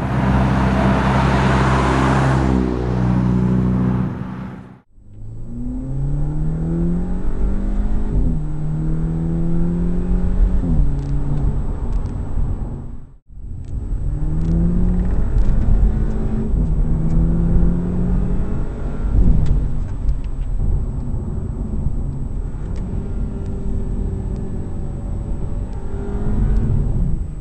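VW MK6 GTI's 2.0-litre turbocharged four-cylinder breathing through an AWE Tuning stainless turbo-back exhaust: a loud pass-by for the first few seconds, then two hard accelerations, the exhaust note climbing in pitch and dropping back at each upshift.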